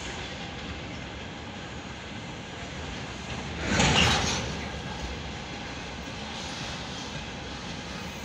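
Container freight train rolling past, flatcar wheels running steadily on the rails, with a brief louder rush about four seconds in.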